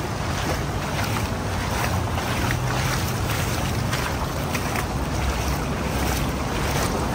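Steady rushing noise of wind buffeting the phone's microphone, with a low rumble, over the wash of water in a concrete stream channel.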